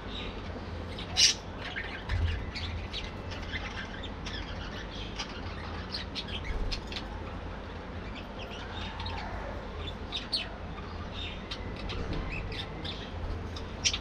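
A flock of budgerigars chirping and chattering, many short calls overlapping, with a louder sharp call about a second in.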